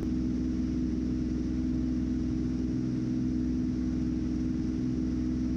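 Beechcraft F33A Bonanza's six-cylinder Continental IO-520 engine and propeller running steadily in flight, heard inside the cabin as a constant drone with a steady low hum.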